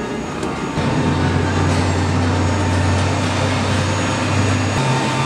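Steady low mechanical rumble with a faint steady hum, getting louder about a second in and shifting slightly higher in pitch near the end.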